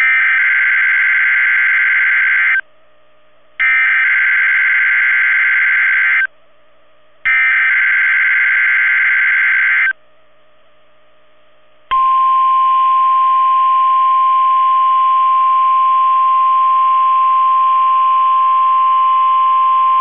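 NOAA Weather Radio Required Weekly Test signal: three identical bursts of buzzing SAME digital header data, each about two and a half seconds long with a second's gap between them. About twelve seconds in, the steady single-pitch 1050 Hz warning alarm tone starts and holds.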